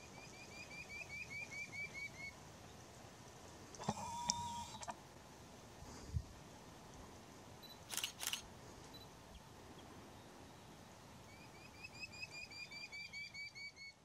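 Red-billed scythebill singing: a run of about a dozen quick, rising whistled notes lasting some two seconds, given at the start and again near the end. In between come a brief noisy burst about four seconds in and two sharp clicks around eight seconds.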